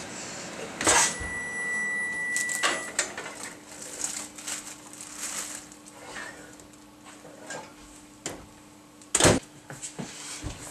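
GE Profile over-the-range convection microwave oven being loaded: the door clicks open about a second in, a steady electronic beep sounds for about two seconds, then the oven runs with a low steady hum, with a loud clunk of the door shutting near the end.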